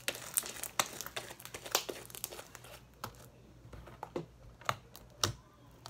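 Hands stretching, pressing and squishing a large batch of slime, making quick sticky clicks and pops. They come thick and fast for about the first three seconds, then as a few single pops near the end.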